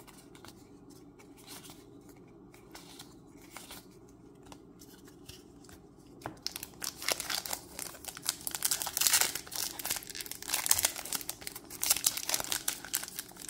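A Magic: The Gathering booster pack's plastic wrapper being torn open and crinkled. Starts about six seconds in, after a few quiet seconds with faint clicks.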